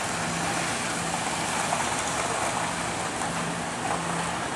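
Weighted push sled with a metal base sliding across concrete, a steady scraping hiss with no breaks.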